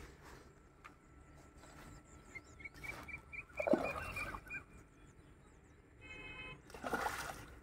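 Baited handline weight landing in shallow lake water with a splash, about three and a half seconds in.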